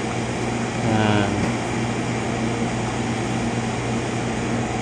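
Hermetic refrigeration compressors of an upright freezer running with a steady hum.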